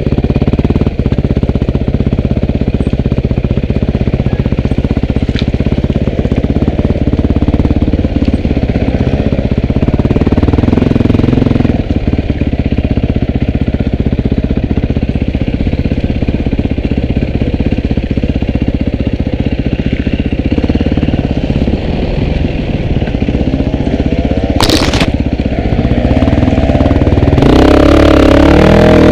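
Dirt bike engine running along a trail, its revs rising and falling with the throttle. There is a short sharp noise about 25 seconds in, and near the end the revs climb and it gets louder.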